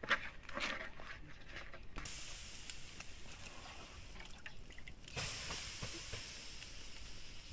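Soft handling and slapping sounds of dough being kneaded in a metal basin. Then a steady hiss from a hot iron griddle over a wood fire, with a louder burst of sizzling about five seconds in as liquid is sprinkled onto the griddle, fading away after.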